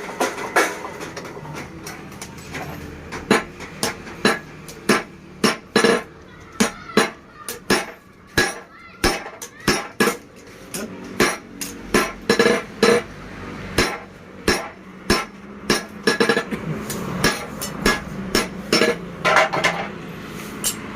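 Hammer strikes on metal at a blacksmith's forge, irregularly spaced at roughly one or two a second, each with a short ring, over a steady low hum.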